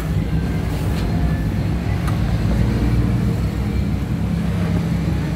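Steady low engine rumble, like an idling motor, with a couple of faint clicks about one and two seconds in.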